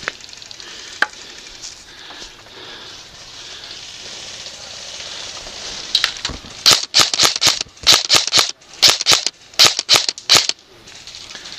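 Airsoft MP5 electric gun firing more than a dozen short, sharp bursts in quick clusters, starting about halfway in and lasting about four and a half seconds. Before that there is only a low outdoor background and a single click about a second in.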